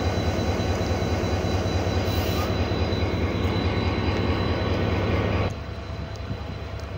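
HGMU-30 diesel-electric locomotive running close by, a loud steady deep engine drone with dense clatter. About five and a half seconds in the sound drops suddenly to a quieter rumble as the locomotive gives way to its passenger coaches rolling past.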